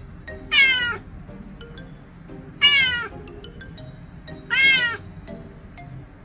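A cat meowing three times, about two seconds apart, each meow falling in pitch, over faint background music.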